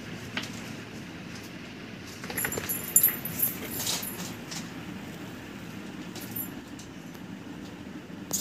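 Kittens playing on a concrete floor: a burst of clattering and rattling about two to four seconds in, as things are knocked about, over a steady low background hum.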